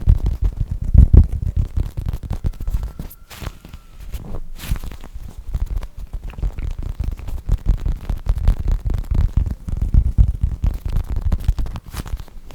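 Soft foam squishy toy squeezed and rubbed right against the microphone, giving irregular low rumbling thuds with a few sharp crackly clicks.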